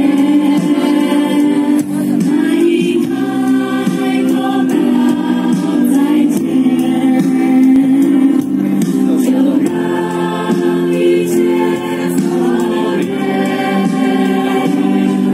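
A large youth choir singing a song together.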